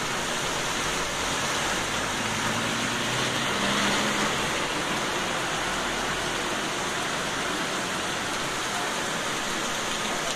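Heavy rain falling steadily on a street, with muddy runoff water running along the curb.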